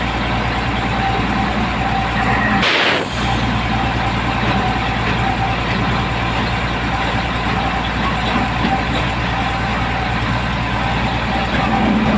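Heavy truck engine idling steadily, with one short, sharp burst of noise about three seconds in.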